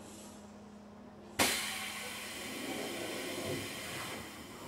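Compressed air hissing out of a Keikyu 1500-series train's pneumatic system: a sudden loud hiss starts about a second and a half in and fades slowly over about three seconds.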